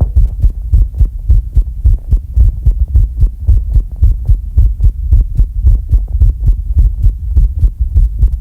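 Rapid, low, muffled thumping, about four even thuds a second, close to the microphone while a person holds their breath, with no breathing heard.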